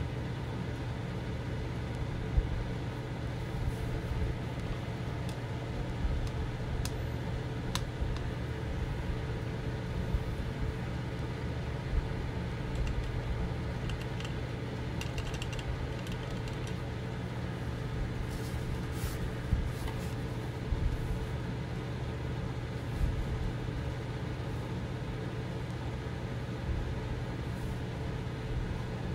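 Steady low machine hum in a small room, with scattered light clicks and taps of a paintbrush in a metal watercolour tin and on paper.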